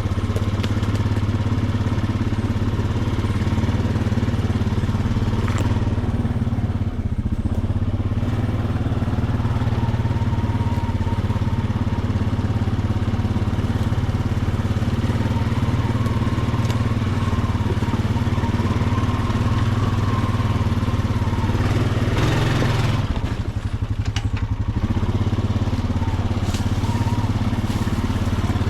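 Honda Rubicon ATV's single-cylinder four-stroke engine running steadily while the machine is ridden along a trail. About three quarters of the way through there is a brief rush of noise and the engine note dips for a moment before steadying again.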